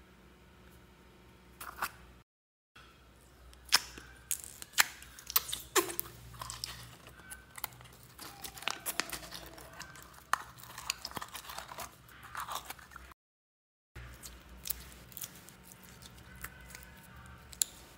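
Clear slime being stretched and squeezed by hand, giving off irregular sticky crackles and sharp pops as it pulls and tears. The sound cuts to dead silence twice, briefly.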